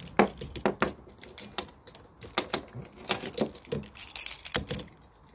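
A bunch of keys jangling, with irregular sharp clicks as one of them is worked against the plastic retaining clip of a rear wiper blade to lift its lever. The clicking dies away near the end.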